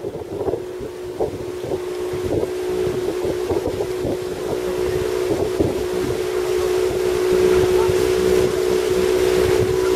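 A riverboat's motor running steadily, a droning hum that grows gradually louder, with wind buffeting the microphone.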